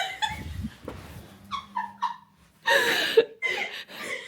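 A woman's high-pitched, squeaky cartoon-character voice noises in short bursts, an impression of Toad, the Mario mushroom character.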